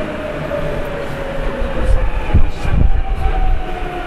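Tokyu 9000 series electric train running at speed, heard from inside the car: steady rumble of wheels on rail, with heavy thumps a little past the middle. A whine slowly falls in pitch and starts again higher near the end.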